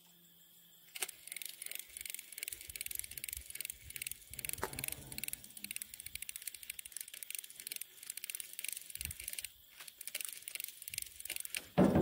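Fishing reel cranked steadily to retrieve a lure for snakehead, a rapid ticking that starts about a second in and stops shortly before the end. A sudden loud thump comes right at the end.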